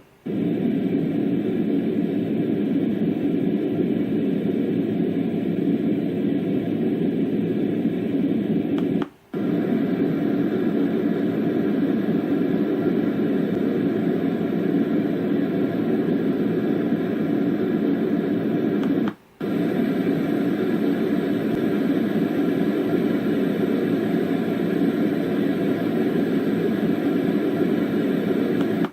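Dreamegg D3 white noise machine playing a steady noise, mostly low in pitch, cut by two brief breaks about nine and nineteen seconds in.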